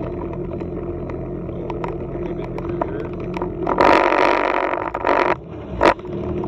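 WaveRunner personal watercraft engine idling with a steady low hum. About four seconds in, a much louder, noisier burst lasts over a second and then cuts off, followed by a short sharp sound near the end.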